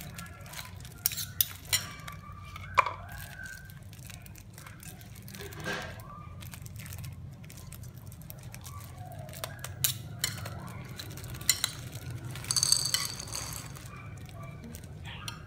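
Kitchen utensils and dishes clinking and knocking while salad is being prepared, with a few sharp clicks spread through and a short scraping rattle near the end, over a steady low hum.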